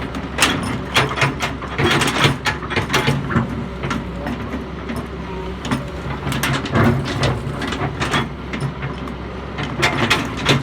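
Doosan excavator at work: a steady low diesel engine hum with many irregular metallic clanks and knocks over it.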